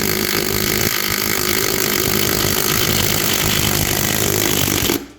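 A power tool runs steadily on the motorcycle's rear axle nut, undoing it, and cuts off abruptly about five seconds in.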